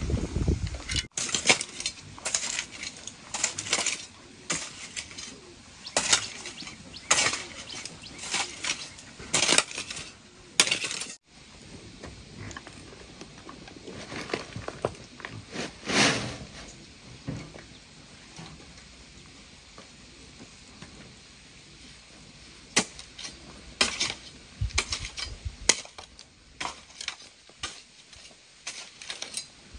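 Metal shovel scraping and chopping into dry, clumpy earth: irregular scrapes and clinks, some strokes sharper and louder than others.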